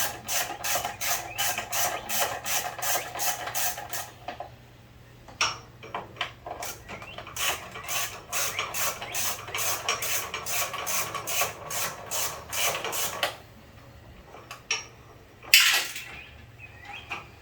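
Hand ratchet wrench clicking as a bolt is worked, about four clicks a second, in two runs of several seconds with a short pause between. A single loud knock about fifteen seconds in.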